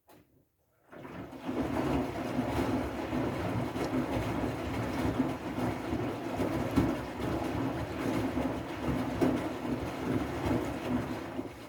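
Siemens i-Dos washing machine running on its wool/delicate (silk) program, a steady churning that fades in about a second in and stops abruptly at the end.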